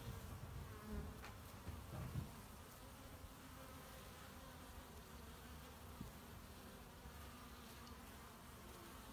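Faint buzzing of many honey bees flying around a hive entrance, with a few louder swells in the first two seconds, then a steady hum.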